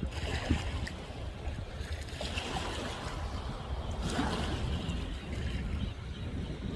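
Wind buffeting the microphone with a steady low rumble, over water washing at the shore that swells twice.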